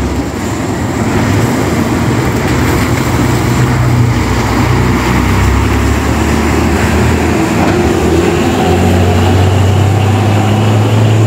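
Intercity coach's diesel engine running as the bus drives past, a steady low drone that grows louder and higher about eight seconds in as it pulls away, with tyres hissing on wet pavement.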